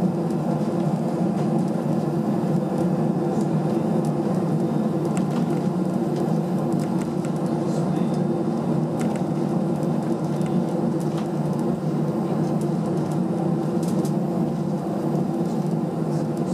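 Airbus A319's jet engines running at low taxi power, heard inside the cabin as a steady, even hum with a few faint ticks.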